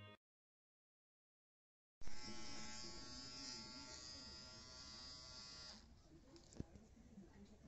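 Cordless Nova NHT 1097 hair trimmer buzzing steadily as it cuts hair around the ear. It starts about two seconds in after a moment of dead silence and stops suddenly about four seconds later: the trimmer giving out on a battery that was never charged.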